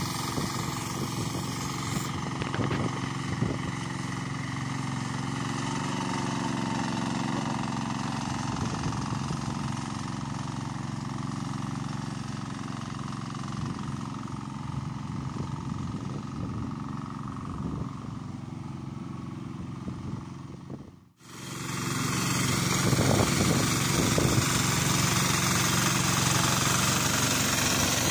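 The 12 HP diesel engine of a turtle-type hand tractor running steadily as it drags its cage-wheel puddler through deep rice-paddy mud. About two-thirds through, the sound cuts out for an instant and comes back louder and closer.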